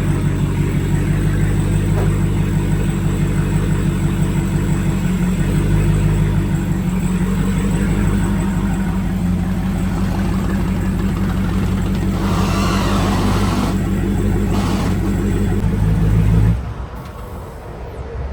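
Car engine idling steadily with a pulsing low note, then shutting off abruptly about sixteen seconds in.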